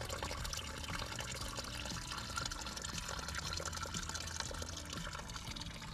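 Snowmelt water trickling and gurgling steadily beneath melting ice and dead grass.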